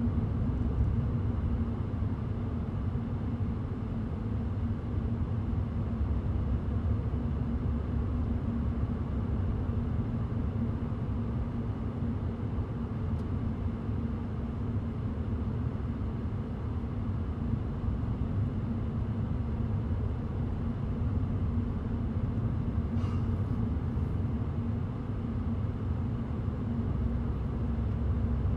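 2018 Toyota Auris driving along: a steady rumble of road and running gear, with a steady low hum over it.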